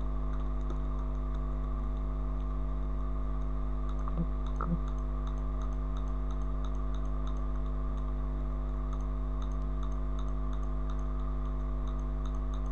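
Steady electrical hum, with faint computer mouse clicks about once a second as path points are placed one by one.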